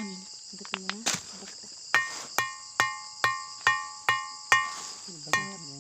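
A ringing stone (batu gong) struck again and again, about two strikes a second after a few loose taps. Each strike gives a bright metallic, gong-like ring of several clear tones, over a steady high drone of insects.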